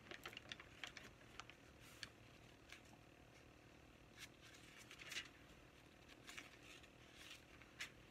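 Faint rustling and flicking of thin Bible pages being leafed through by hand: scattered crisp flicks, with a few longer swishes as pages are turned.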